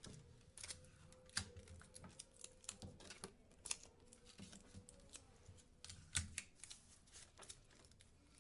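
Quiet, irregular rustles, taps and clicks of paper, photos and tape being handled and pressed onto scrapbook pages.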